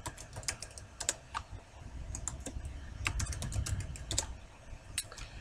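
Computer keyboard typing: short key clicks in irregular runs, with brief pauses between them.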